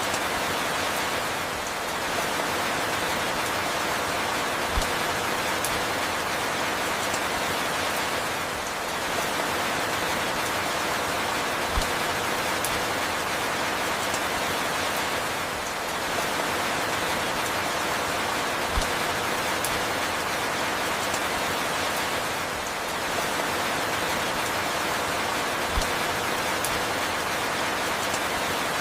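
Steady falling rain, an even hiss with faint scattered drop ticks. A brief dip in level and a faint low thump each recur about every seven seconds.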